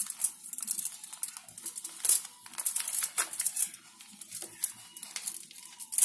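Aluminium foil crinkling in irregular rustles as hands peel a set chocolate rainbow off the foil.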